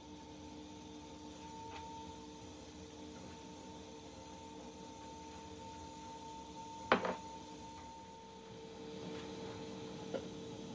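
A steady hum made of a few held tones. A single sharp click comes about seven seconds in, and a fainter one near the end.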